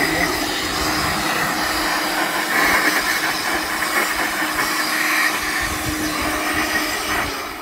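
Cordless battery-powered air blower running steadily, a rush of air with a faint motor whine, blowing dirt away from the spark plug holes; it winds down near the end.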